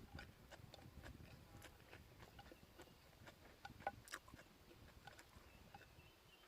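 Near silence with faint, irregular clicks and ticks: quiet sounds of eating.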